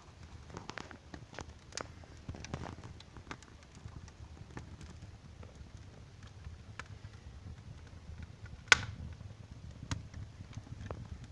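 Wood fire in a fireplace crackling: irregular sharp pops and snaps over a low, steady rumble, with one loud pop about three quarters of the way through.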